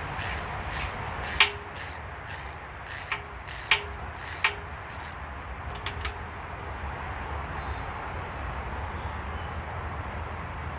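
Ratchet wrench clicking in short repeated strokes, about two a second, loosening the coolant drain bolt on a Honda B20 engine block. The clicking stops about six seconds in.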